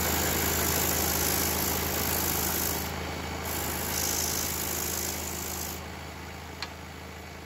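Pégas 21-inch scroll saw running with a fine sanding band fitted, a steady motor hum under a hiss as foam polystyrene is sanded against the band. The high hiss drops out briefly about three seconds in and again near the end, and the whole sound fades away in the second half.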